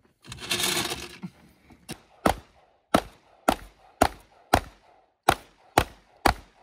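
A short rush of noise, then a steady series of sharp cracks, about two a second.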